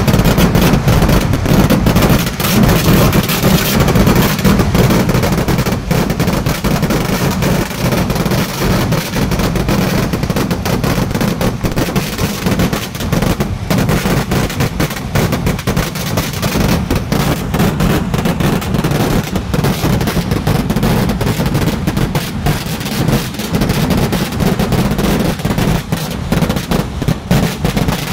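Kerala vedikkettu fireworks: a dense, unbroken barrage of firecracker and shell bursts, the bangs so close together that they run into one continuous loud crackle.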